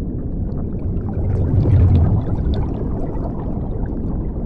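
Underwater bubbling and rumbling water, a steady low churn with small crackling bubble pops on top, swelling a little about a second and a half in.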